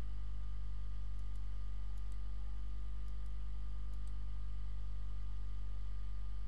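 Computer mouse clicking: four pairs of faint clicks about a second apart, over a steady low electrical hum.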